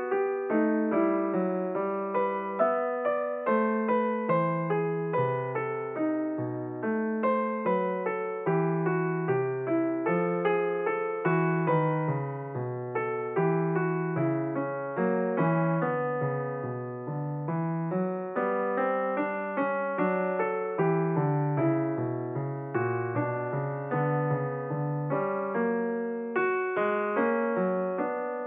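Background piano music: a steady flow of struck notes that ring and fade.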